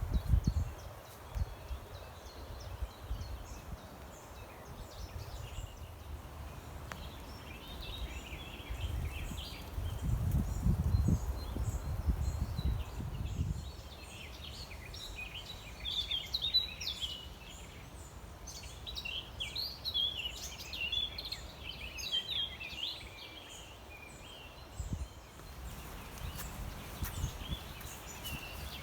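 Birds singing and chirping in quick short calls, busiest through the middle, over a low outdoor rumble that swells for a few seconds early on.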